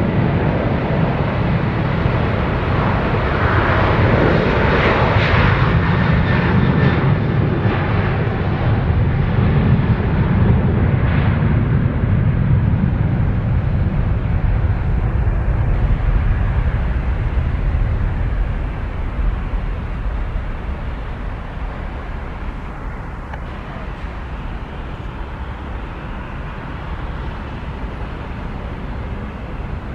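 Jet airliner's engines, loud for the first eighteen seconds or so and then fading away as the aircraft moves off.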